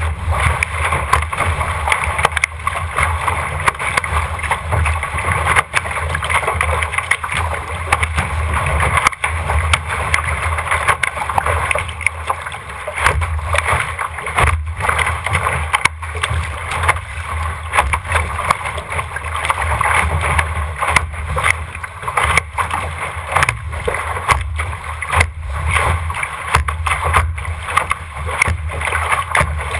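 RS600 sailing dinghy planing through chop: water rushing along the hull and spray hitting the foredeck, with frequent sharp slaps over a steady low rumble.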